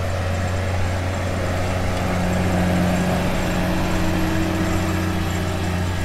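Tractor engine running under load, pulling a Simba Cultipress cultivator with spring-loaded tines through rough, lumpy soil; a steady engine note over the rumble of the implement, swelling a little through the middle as it passes close.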